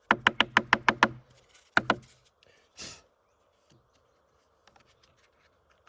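Chainsaw air filter being knocked to shake out the sawdust clogging it: a quick run of about eight sharp knocks within a second, then two more and a last single knock.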